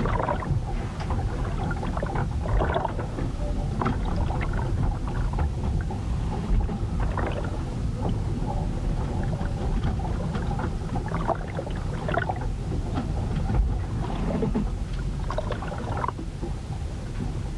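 A wooden ship riding out a storm: a steady low rumble of wind and sea against the hull, with the ship creaking at irregular moments every few seconds.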